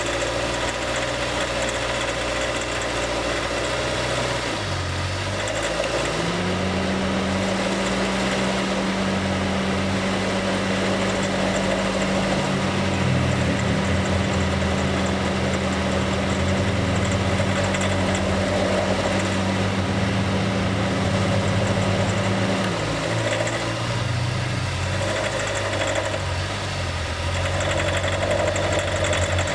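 Honda City 2020's four-cylinder engine running steadily, with a higher steady hum that comes in about six seconds in and stops about twenty-two seconds in. This is the engine noise that the owner says keeps growing and that the dealer blamed on the fuel.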